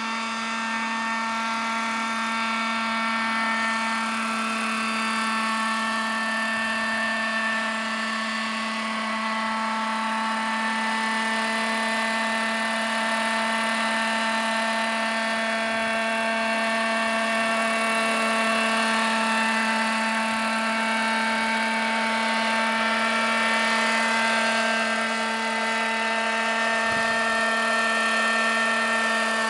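Petrol-engined radio-controlled scale model of a Robinson R22 helicopter hovering, its engine and rotors running in a steady high-pitched whine with many overtones.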